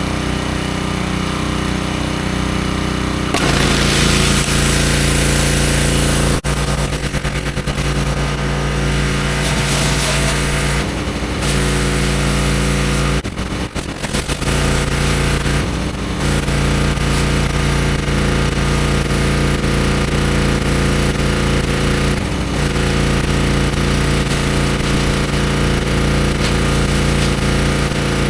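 Gas-engine pressure washer running steadily, with a high-pressure water jet hissing onto a concrete driveway. The spray cuts out briefly a few times and picks up again.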